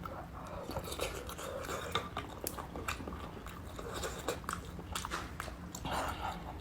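Close-miked chewing and biting of food, with many small, irregular wet mouth clicks.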